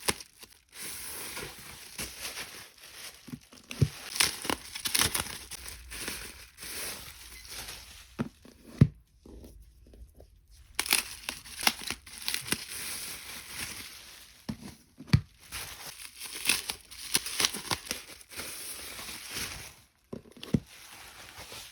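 Packaging being crinkled, crumpled and torn by hand in quick, irregular crackles, with a short lull about nine seconds in.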